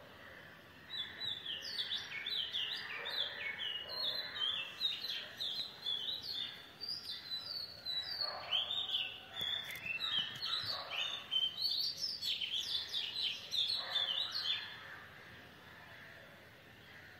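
Birds chirping: many quick, overlapping short calls over a faint steady background noise, dying away near the end.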